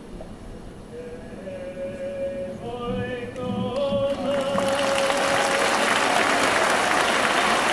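Live choir and orchestra: soft, long held notes begin about a second in, and at about four seconds the sound swells to a loud, full ensemble.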